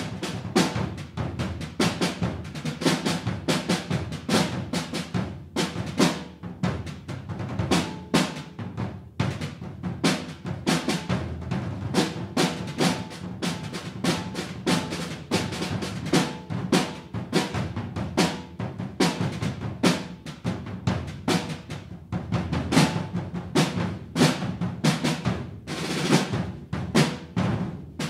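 Three wooden-shell rudimental field drums played together with sticks: a dense, continuous stream of rolls and strokes with frequent loud accents.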